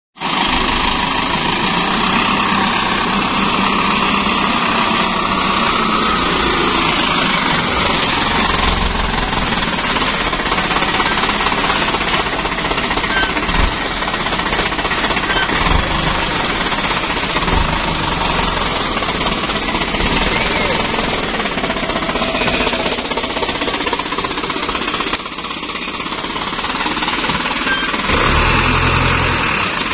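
Isuzu Elf dump truck's diesel engine running steadily, getting louder in the low range near the end.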